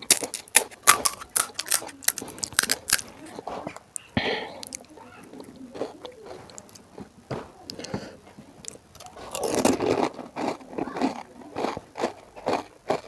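Close-up crunching and chewing of crisp panipuri (golgappa) shells, with a quick run of sharp crackles in the first few seconds and more scattered crunches after.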